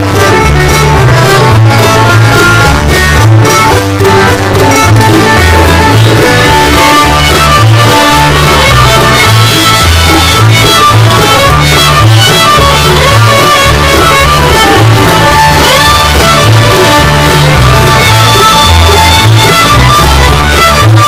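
Loud background music with a repeating bass line.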